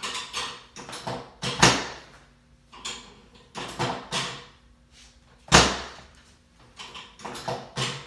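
Sharp knocks and thuds from a chiropractic adjustment on a treatment table. Two loud impacts come about four seconds apart, with softer knocks and rustling between them and near the end.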